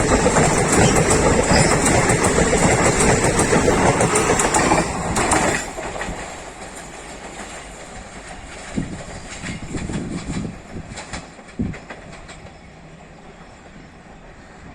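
Express passenger train passing close at speed, with a steady rumble of wheels on rail. About five and a half seconds in the sound drops sharply as the end of the train goes by. A quieter tail of wheel clicks over rail joints follows and fades away.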